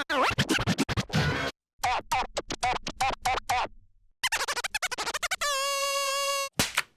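Cartoon soundtrack music with quick scratch-like pitch slides, then a run of rapid choppy stabs, ending in one held note about a second long.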